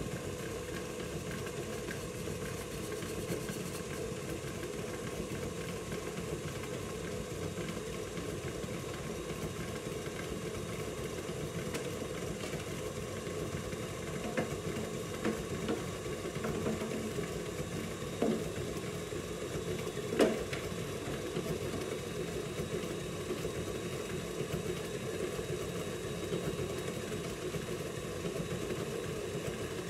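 KitchenAid stand mixer running steadily, creaming butter and brown sugar until light and fluffy. A few sharp knocks come about midway, the loudest about twenty seconds in.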